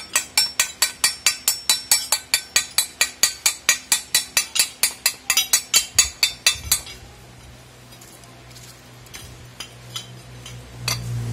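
A thin steel hand tool tapping quickly and evenly on a welded steel block, about five light metallic strikes a second for some seven seconds, as if chipping at the weld bead. The taps stop, leaving quieter rubbing, and a low steady hum starts near the end.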